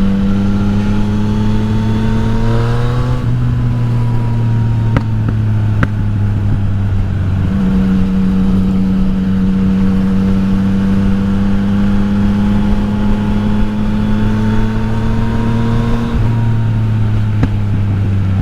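Yamaha XSR900's inline-three engine under way. Its pitch rises as it accelerates for the first few seconds, drops with an upshift about three seconds in, then holds a steady cruise that climbs slowly until it changes again near the end. Wind noise runs underneath.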